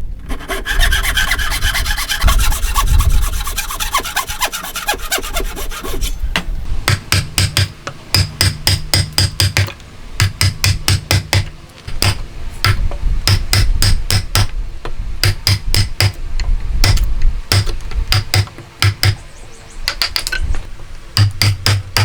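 Hand tool scraping against wood in rapid back-and-forth strokes. The first few seconds are a dense, continuous rasping; after that come quick repeated strokes in short runs.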